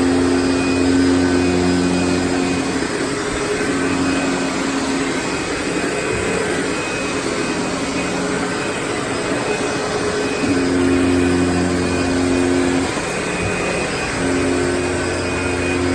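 Hoover Insight 100 vacuum cleaner running steadily, its motor tone fading and coming back every few seconds under a constant rush of air.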